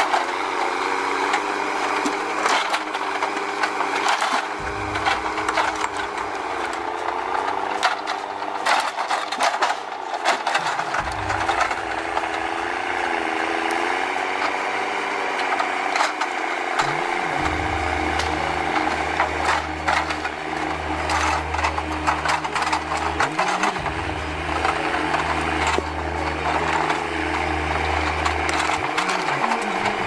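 Forestry forwarder's diesel engine running, its pitch wavering as the hydraulic log crane works, with frequent knocks and clunks of logs and grapple.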